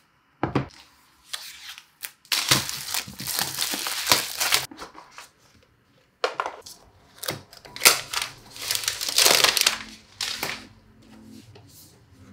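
Unboxing an Apple Magic Keyboard: a knock about half a second in, then two long stretches of crinkling, rustling and scraping as the box and its packaging are handled and opened.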